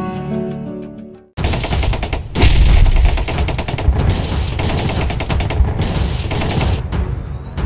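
Gentle guitar music fades out. Then a loud outro sound effect breaks in suddenly: a dense run of rapid crackling bangs over a deep rumble, jumping louder about two and a half seconds in.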